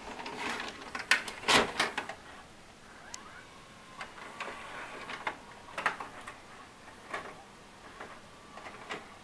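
VHS cassette pushed into the front loading slot of an Emerson EWV404 VCR: a few loud clunks between about one and two seconds in as the mechanism takes the tape, then scattered softer mechanical clicks and clunks as it loads.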